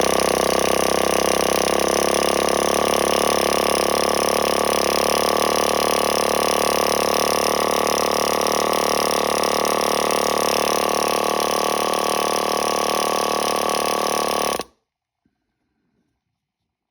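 Freshly rebuilt Traxxas Pro .15 nitro engine running at a steady, high, buzzing pitch, held even for about fourteen seconds, then stopping abruptly.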